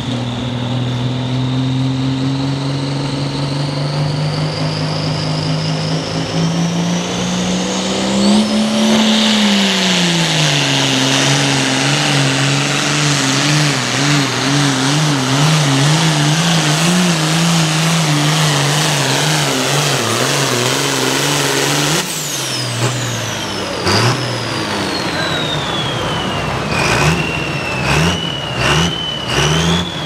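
Ford 9000 hot farm pulling tractor's diesel engine at full throttle hauling the sled, with a high whine over it; the pitch climbs steadily, dips as the engine loads down, then wavers up and down. About two-thirds through the throttle is cut and the whine falls away, and near the end the engine is blipped in several short revs.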